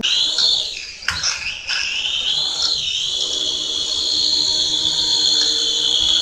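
Small toy drone's motors and propellers whining at a high pitch, wavering at first and then holding steady.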